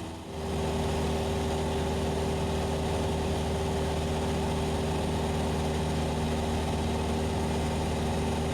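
Cessna 172SP's four-cylinder Lycoming IO-360 engine and propeller droning steadily in level cruise, heard inside the cockpit. The sound dips briefly at the very start, then holds an even, unchanging tone.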